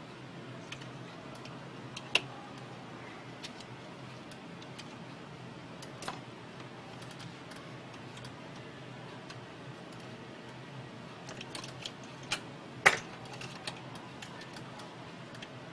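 Scattered light clicks and taps of small parts being handled during printer disassembly, one sharper knock about 13 seconds in, over a steady low hum.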